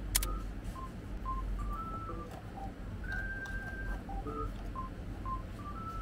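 A sparse, slow melody of short, pure single tones, one note at a time, over steady room hum. There is a sharp click just after the start and a few soft clicks as the cards of a flip-card desk calendar are turned.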